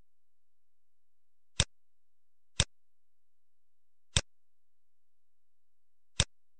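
Four sharp computer mouse clicks, unevenly spaced one to two seconds apart, with near silence between them.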